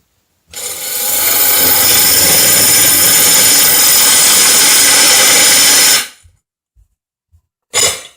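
Power drill with a diamond hole saw grinding into porcelain tile, a steady high grinding that stops about six seconds in. Near the end comes a second brief burst of drilling.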